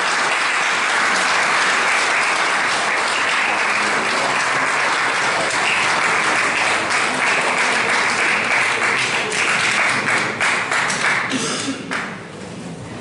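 Audience applauding steadily, breaking into scattered claps and dying away about twelve seconds in.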